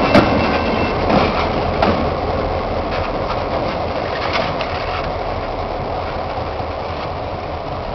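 A pair of CN GP9RM diesel road-switcher locomotives rolling past at low speed: the steady drone of their diesel engines, with a few wheel clicks over the rail in the first couple of seconds. The sound slowly fades as they move away.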